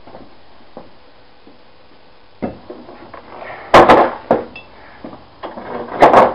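Hard plastic and metal parts of an upright vacuum cleaner clattering and knocking as it is pulled apart for scrap. There are a few sharp knocks, the loudest a little before halfway and again near the end.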